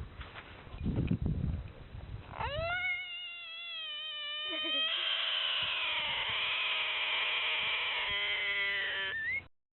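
An animal's long, high-pitched call: it rises at the start and holds steady, then turns harsher and noisier, with a fluttering stretch near the end, before cutting off abruptly.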